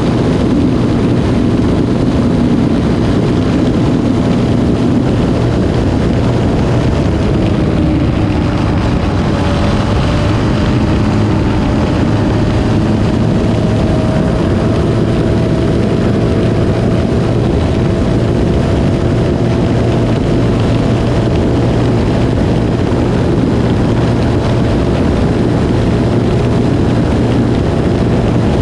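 Yamaha Raptor 700R's single-cylinder four-stroke engine running hard at highway speed, with a steady rush of wind and tyre noise on asphalt. The engine pitch dips slightly and climbs back near the middle.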